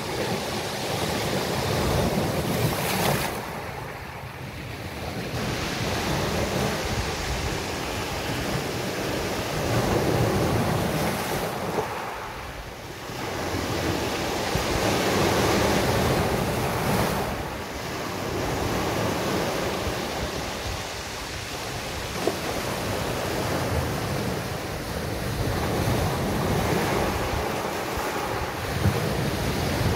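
Sea waves breaking and washing up a beach, the surf swelling and falling away every few seconds, with wind buffeting the phone's microphone.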